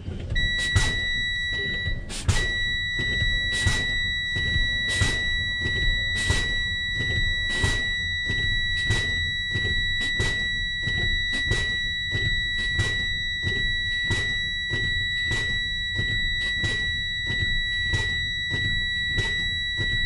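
Truck's low-air warning buzzer sounding a steady high beep-tone, warning that air-brake pressure is below the warning point. Short hisses of air about every second and a quarter come from the service brakes being applied and released to bleed pressure down toward the spring-brake valve pop-out.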